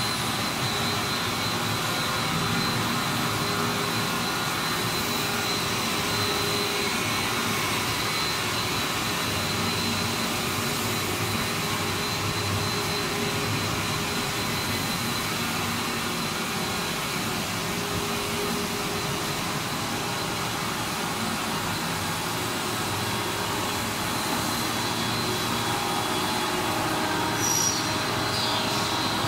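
Running machinery of a PVC pipe extrusion line: a steady, even hiss and hum with a thin, steady high whine, and a brief high squeak near the end.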